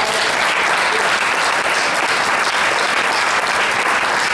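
Audience applause: a steady crowd of people clapping after a talk ends.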